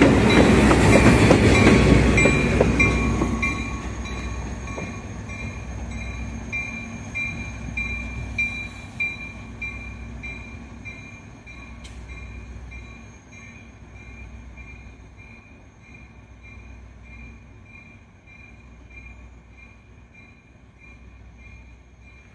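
Diesel locomotive rumbling right past, then running away along the track so its engine fades steadily. Its bell rings about twice a second throughout.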